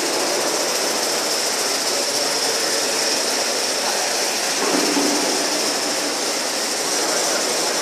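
Steady hiss and running noise of gauge one live-steam model locomotives on the layout, blended with the large hall's background noise.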